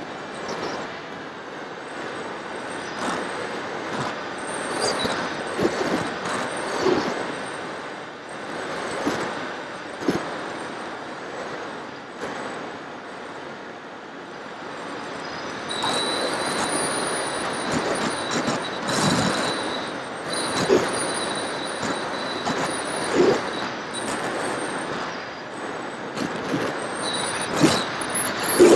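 Wind rushing over an FPV aircraft's onboard camera in flight, swelling in irregular gusts. About halfway through, a thin high whine from the electric motor comes in and the noise grows louder, as with more throttle.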